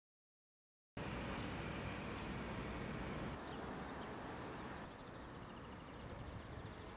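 Quiet outdoor background noise, a steady low rumble with faint bird chirps, starting after about a second of silence.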